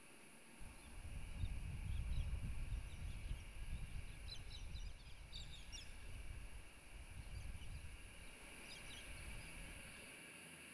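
A low rumble that comes in about half a second in, is strongest over the next few seconds and eases toward the end, under faint bird chirps in short runs about four to six seconds in and again near nine seconds.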